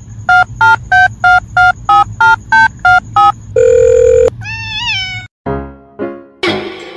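A run of about ten short electronic beeps in a simple tune, three a second, followed by a longer held tone and a short rising-and-falling call. Piano music with a repeated note pattern comes in near the end.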